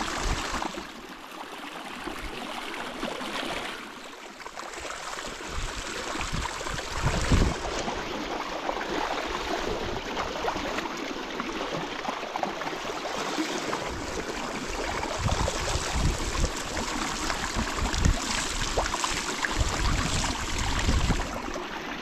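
River water running: a steady rushing, with scattered low thumps.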